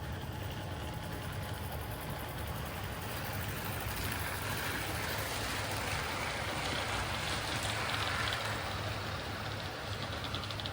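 Hornby live-steam model locomotive running round the track with its train of coaches: a steady hiss of steam and rolling wheels over a low hum, growing louder towards the middle and easing off again, with a few light ticks near the end.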